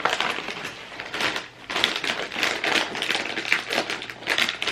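A potato chip bag crinkling and crackling as it is handled and opened: a dense, irregular run of sharp rustles that starts suddenly.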